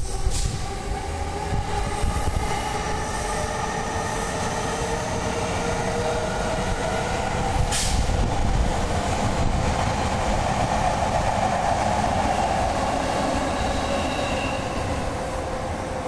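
Electric train running past on the adjacent tracks: a continuous rumble with several high squealing tones that slowly shift in pitch, loudest in the middle. There is a sharp click about eight seconds in.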